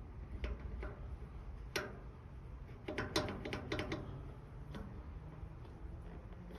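Irregular sharp clicks from a Weber Spirit E-310 gas grill as its igniter is pressed and burner controls are worked, trying to light a front burner that will not come on. The clicks come in a cluster about three seconds in.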